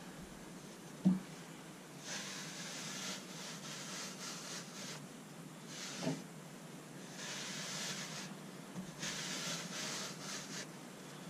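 Pet hair removal brush rubbed back and forth over the carpet-like back of a truck seat: faint scratchy rustling in four or so runs of strokes with pauses between. Two brief low sounds stand out, one about a second in and one about six seconds in.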